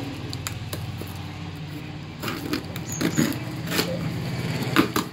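Scissors cutting along the packing tape of a cardboard box, with scraping and rustling of tape and cardboard and a handful of sharp clicks, the loudest near the end.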